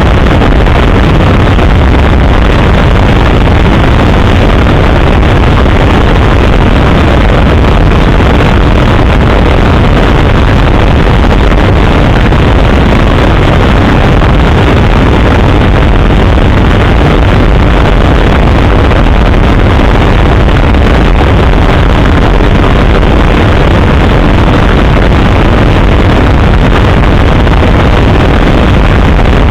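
Helicopter in flight, a loud, steady, deep engine-and-rotor noise with wind on the microphone.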